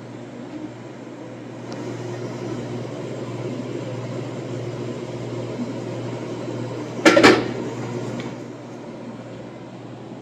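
Steady low hum of a running electrical appliance, with one short, loud clatter about seven seconds in.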